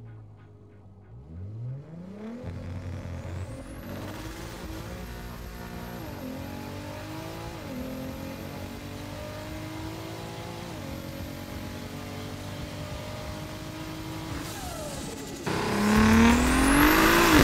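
Turbocharged VW Golf Mk5 R32's 3.2-litre VR6 accelerating hard, its pitch climbing and dropping at each of several upshifts, then easing off. Near the end a louder sound with a rising whine comes in.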